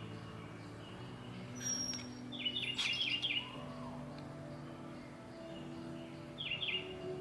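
Soft background music of sustained low notes that change pitch now and then, with quick trills of bird chirps three times: just after the start, around 2.5 to 3.5 seconds, and near the end. A sharp click sounds near the middle.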